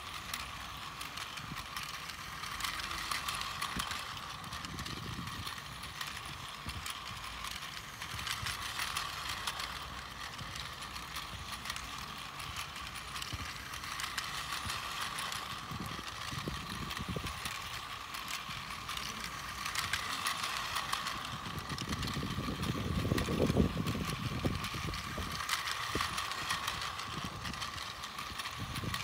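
Battery-powered Plarail toy train (Seibu 9000 series) running on plastic track: a steady motor whir with quick clicking from the wheels and track joints, and low rumbles of wind now and then.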